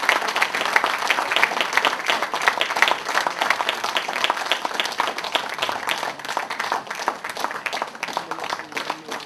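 Audience applauding, many hands clapping at once; the clapping thins out and grows quieter toward the end.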